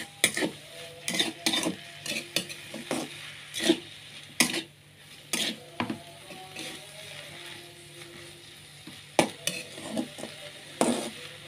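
A utensil stirring and scraping stir-fried papaya leaves and anchovies in a metal pan: irregular clacks and scrapes, with a quieter stretch past the middle, over a light sizzle from the just-cooked food.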